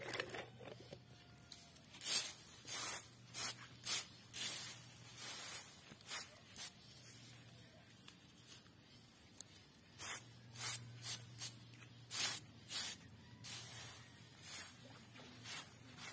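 A series of short swishing, hissing strokes at an uneven pace, about one or two a second, over a faint steady low hum.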